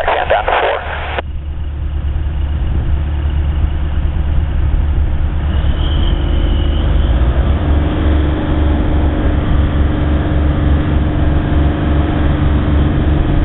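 Cessna 172 Skyhawk's piston engine and propeller running at low taxi power as the plane taxis: a steady drone with a throbbing low rumble, and a steady hum entering about halfway through.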